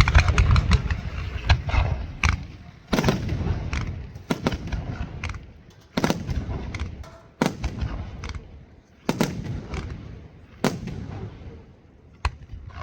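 Aerial firework shells bursting. A rapid volley of bangs at the start gives way to single heavy bursts every second or two, each trailing off in a rolling echo.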